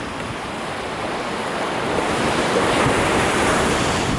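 Surf washing on the shore, swelling to a peak about three seconds in, with wind buffeting the microphone.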